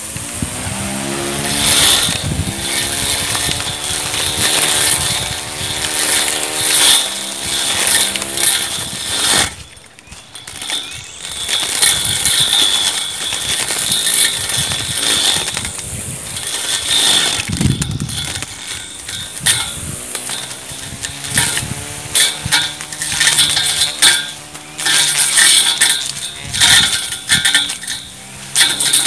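Homemade electric grass trimmer driven by a DC 775 motor on 20 volts, running at high speed with a steady whine while its spinning blade cuts through grass, with rapid ticking and slapping as the stems strike it. The motor note dips briefly about ten seconds in, then picks back up.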